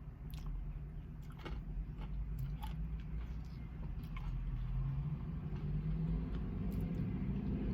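Chewing and small mouth clicks from eating a sundae with crushed almonds, over a low steady rumble inside a car.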